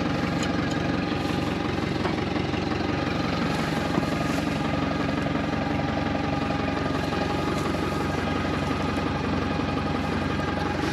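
Kubota M105S tractor engine running steadily with the Kuhn disc mower engaged, a constant mechanical drone with a few steady tones over it. A single light click about four seconds in.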